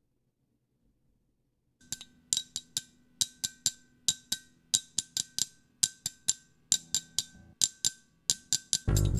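A syncopated hand-percussion groove of sharp, clinking strokes with a short ring, about three a second, starting about two seconds in: the first layer of a live loop. A bass guitar comes in near the end.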